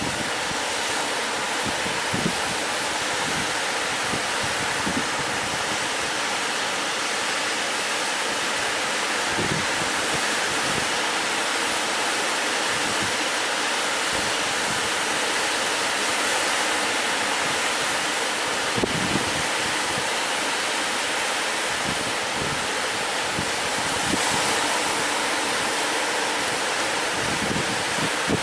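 Steady rushing of sea surf breaking and washing in, with scattered low thumps of wind buffeting the microphone.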